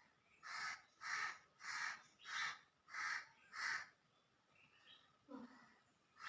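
A crow cawing six times in an even series, about one and a half calls a second, with another caw at the very end.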